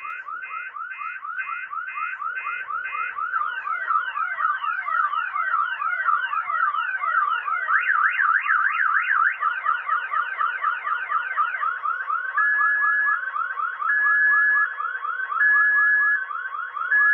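Electronic fire alarm sounding: a fast warbling siren of about three sweeps a second. Stepped beeps are layered over it at the start, and from about two-thirds of the way in a separate beep repeats every second and a half.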